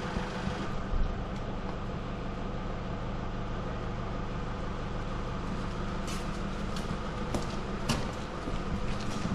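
Tractor engine idling steadily with a low, even hum. A few light metallic clicks and knocks come in the second half.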